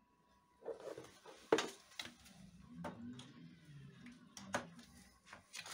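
Several scattered clicks and knocks of hands working at a small air compressor's tank as the condensate drain tap is opened; the compressor itself is not running.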